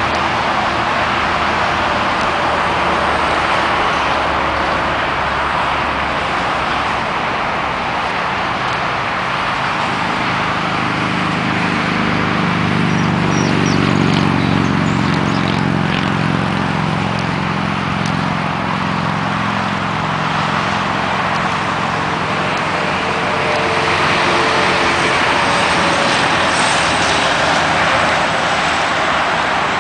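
Steady roar of freeway traffic. A lower engine hum from a heavier vehicle swells and fades around the middle.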